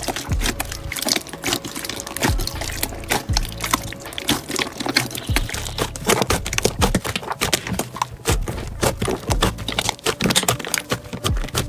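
Slime being squished and worked, giving a dense, irregular run of wet, sticky pops and clicks.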